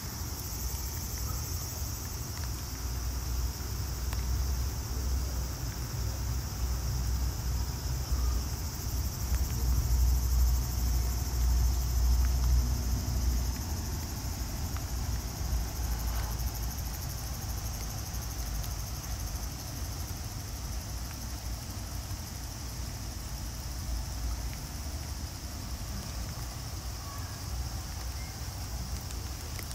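Steady outdoor background noise: an even, high drone over a low rumble, a little louder for a few seconds about ten seconds in.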